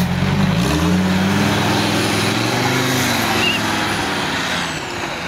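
Off-road 4x4's engine revving as it drives through a flooded mud hole, the pitch climbing about a second in and dropping after about three seconds, over the noise of the tyres churning through mud and water. The sound fades near the end as the vehicle pulls away.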